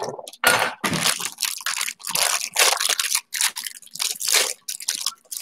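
Plastic wrapper crinkling and crackling as it is pulled and peeled off a rolled pie crust, in a string of irregular crackly bursts.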